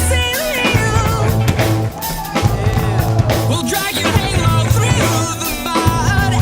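Rock music with electric guitar over drums and a pulsing bass, the guitar lines bending and wavering in pitch.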